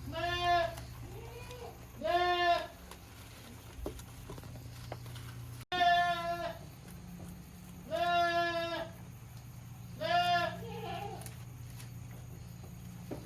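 Young goat bleating: five loud, high-pitched calls, each under a second and about two seconds apart, with a couple of fainter bleats in between. A steady low hum runs underneath.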